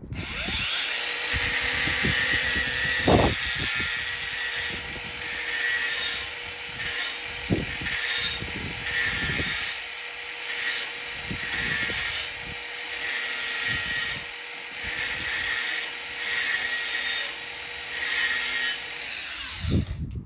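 Sandpaper on a flexible sanding block rubbed back and forth over primer on a car panel: a steady scratching hiss in long strokes, with short breaks every second or two.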